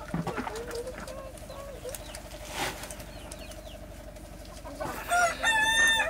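A rooster crows loudly about five seconds in, its call held level and then falling away as it runs on past the end. Before it there are only faint bird calls and a soft knock near the start.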